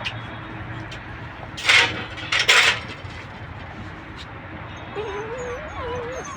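Two short, loud noisy bursts about two seconds in, then a puppy whining near the end with a thin, wavering pitch.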